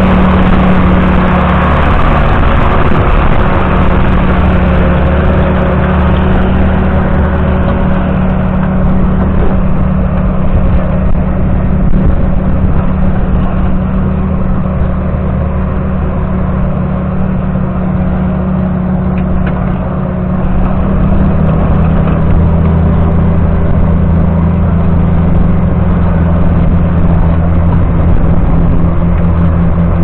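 John Deere 7710's 8.1-litre six-cylinder diesel engine pulling a reversible deep plough through the soil under heavy load, a steady drone. Its note drops slightly about twenty seconds in.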